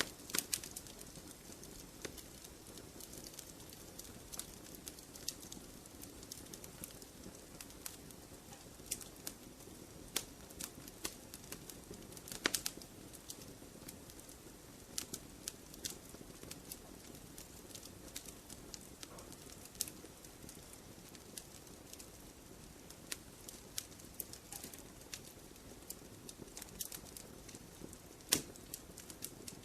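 Wood campfire burning with a soft steady hiss and irregular crackles and pops, a few louder snaps among them.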